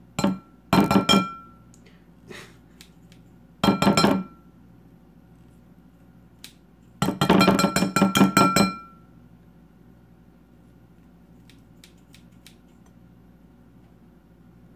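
Kitchen scissors snipping through raw bacon: quick runs of sharp metallic clicks with a ringing note. Short bursts come near the start and around four seconds in, then a longer run of snips about seven seconds in.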